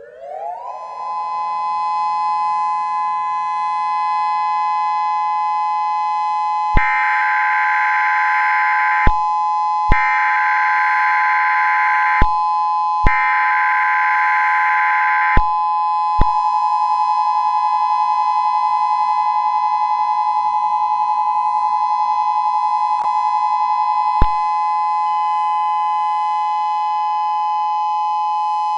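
Electronic civil defense siren that winds up over about a second and then holds a steady two-tone wail. About seven seconds in, three chirping data bursts of an EAS SAME header, each about two seconds long, play over it a second apart.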